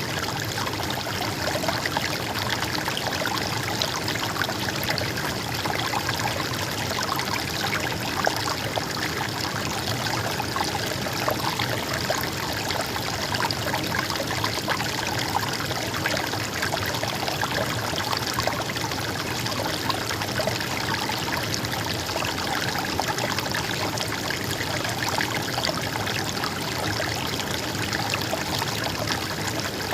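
A river or stream of water flowing and trickling over stones, a steady, even babble.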